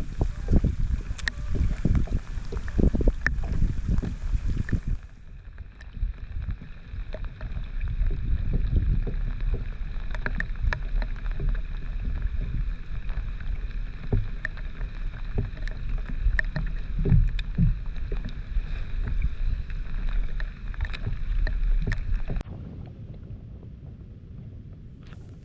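Kayak on open water: water sloshing against the hull with scattered knocks, over a low wind rumble on the microphone. The sound changes abruptly twice.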